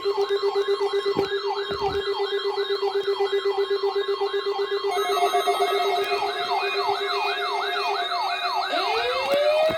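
Electronic sirens: a fast yelp, about four to five sweeps a second, over a steady low tone, with a second siren layer joining halfway through and a rising wail winding up near the end.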